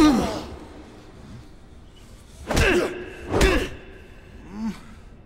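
Staged fight sound effects: heavy punch impacts with the fighters' grunts. One loud blow lands right at the start, two more blows with grunts come about a second apart past the halfway point, and a short grunt follows near the end.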